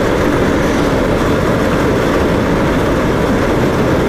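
Steady low rumble of a vehicle travelling along a road: road and engine noise, with wind on the microphone.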